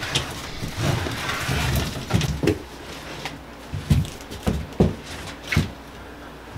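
A heavy electric scooter being wrestled out of its cardboard shipping box: cardboard scraping and rustling, then a series of about six dull thumps and knocks as the scooter bumps against the box and the floor.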